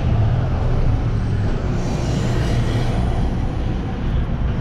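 Steady low mechanical rumble, with no distinct knocks or clicks.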